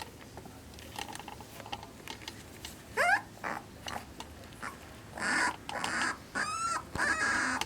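A Pembroke Welsh Corgi puppy, about three and a half weeks old, gives a short rising squeal about three seconds in, then a run of short yips and yelps near the end.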